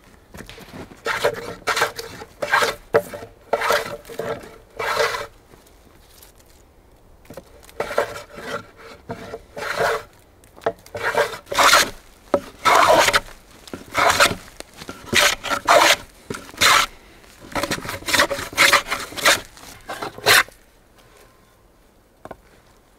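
Wooden hand plane shaving along a wooden plank in quick repeated strokes. The strokes come in several runs with short pauses between, the longest pause about six seconds in, and stop near the end.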